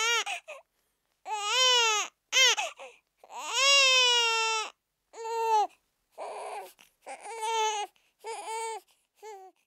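Newborn baby crying: a string of about eight wails, each rising and then falling in pitch, the longest about a second, the later ones shorter and weaker.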